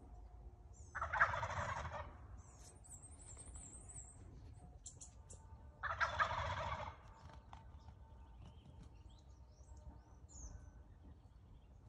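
Wild turkey gobblers gobbling: two loud rattling gobbles about five seconds apart, each lasting about a second. Faint songbird chirps fall between them.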